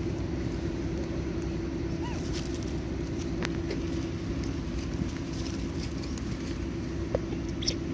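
Steady low hum of a running motor, with a few short clicks, one about three and a half seconds in and a couple near the end.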